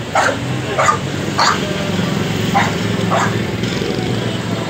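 A dog barking about five times, in short separate barks, over the steady low running of a motorcycle engine.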